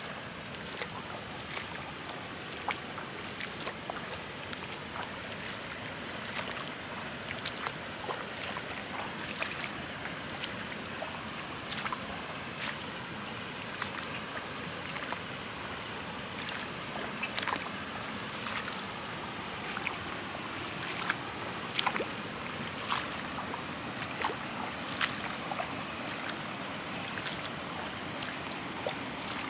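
Irregular splashes and sloshing of wading through shallow water, with scattered short clicks over a steady hiss.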